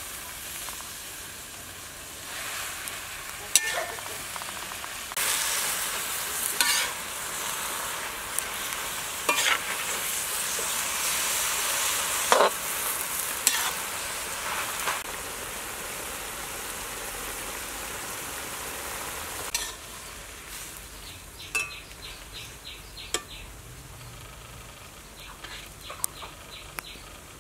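Pumpkin leaves stir-frying in a hot wok: a steady sizzle, loudest a few seconds in while the fresh leaves hit the oil and fading lower after about twenty seconds. Occasional sharp clinks of the metal ladle against the wok.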